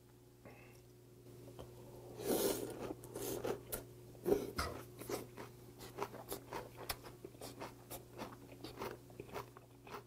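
Close-up chewing of a mouthful of raw damselfish sashimi and crunchy vegetables in cold doenjang soup: a short slurp about two seconds in, then steady crunchy chewing.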